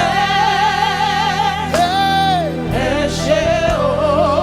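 Live gospel worship music: long, wavering lead notes, one held steady with a slide about halfway, over a steady low accompaniment.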